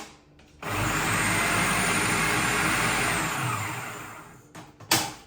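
Electric food processor running for about three seconds as its blade chops okra, then the motor winds down and fades out. A sharp knock follows near the end.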